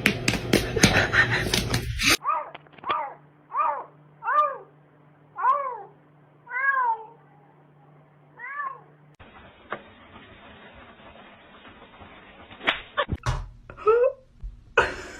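Domestic cat meowing over and over: about nine short meows, each rising and falling in pitch, less than a second apart. Before them come a couple of seconds of noisy clatter with clicks, and after them a hiss with a few sharp knocks and one more meow near the end.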